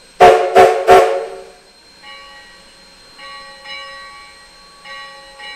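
Three short, very loud blasts of Sierra Railway #3's rebuilt steam chime whistle in quick succession, each a chord of several tones. This is the standard three-short signal a locomotive gives before backing up.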